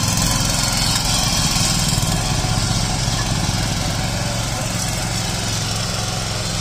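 Ittaly 9 hp power weeder's 177F single-cylinder four-stroke petrol engine running steadily under load as its rotary tines till the soil.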